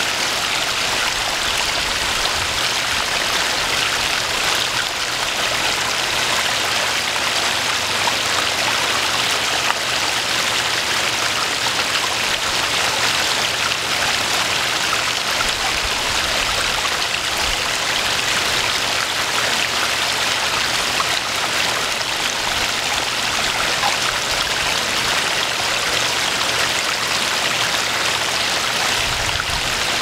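Garden koi pond waterfall splashing, a steady even rush of falling water.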